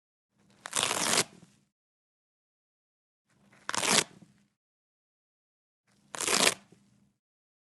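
Velcro being pulled apart from felt, three separate rips with silent gaps between: a longer one near the start, then two shorter, sharper ones about two and a half seconds apart.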